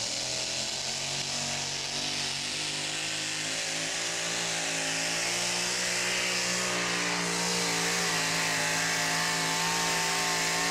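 Two-wheel-drive pulling truck's engine held at high revs under full load as it drags a weight-transfer sled, its pitch creeping slowly upward through the pull.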